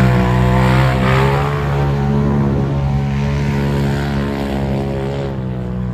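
Off-road side-by-side UTV engine held at high revs under hard throttle, a steady drone, its pitch easing slightly near the end.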